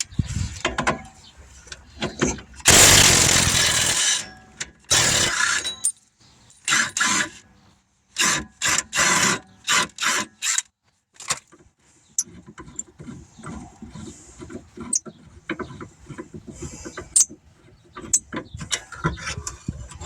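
A 3/8-drive hand ratchet spinning out the lower control arm bolts, in runs of short repeated strokes, with metal clanks of tools and suspension parts as the arm comes free.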